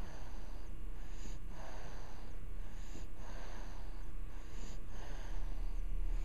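Sleeping baby snoring, a noisy breath about every second and a half, over a steady low hum.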